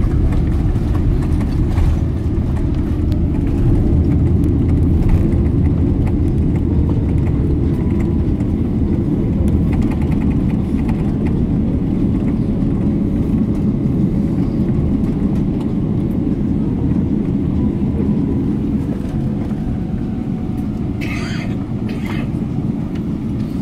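Jet airliner cabin noise while rolling on the ground just after landing: a steady, loud low rumble from the engines and airframe that slowly eases off as the aircraft slows. A brief higher sound comes near the end.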